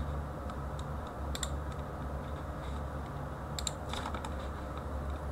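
A few light clicks from a computer mouse and keyboard: one about a second and a half in, then a small cluster near four seconds, over a steady low hum.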